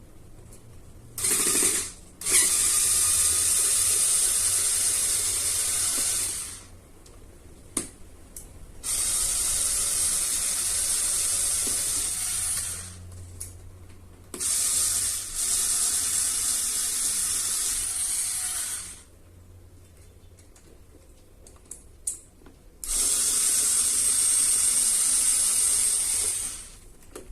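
Cordless electric screwdriver running in repeated bursts of about four seconds each, with short pauses between, as it backs screws out of a fan motor's housing.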